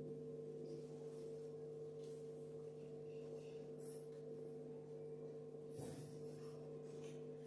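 Faint, steady electrical hum from the hall's sound system, a few low tones held unchanged, with a soft rustle about six seconds in.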